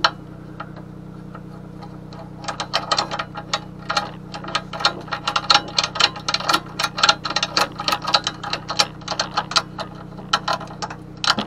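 Ratchet strap buckle being worked to tighten the strap: quick, uneven runs of sharp ratchet clicks, starting about two seconds in, over a steady low hum.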